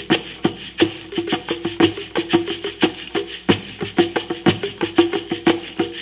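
Live hand-percussion music: a fast, uneven run of sharp knocking strikes, several a second, many with a low ringing pitch under them.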